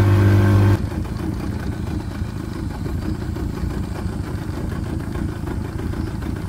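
Small boat's motor running with a steady hum that drops off sharply about a second in, leaving a lower, uneven rumble as the boat slows toward shore.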